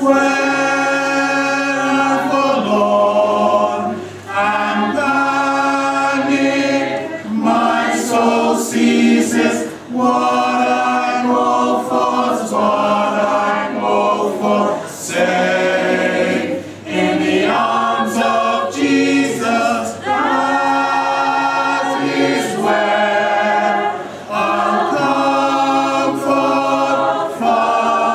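Mixed choir of men's and women's voices singing a cappella in harmony, in phrases broken by brief breaths.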